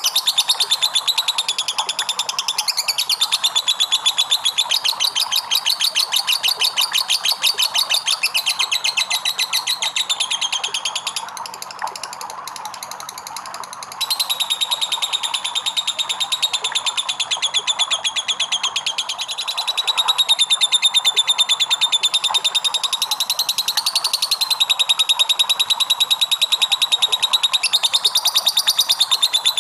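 Lovebird 'ngekek': a long, fast chattering trill made of many rapid pulses a second, kept up almost without a break. It drops quieter for a few seconds about 11 seconds in, then picks up again at full strength.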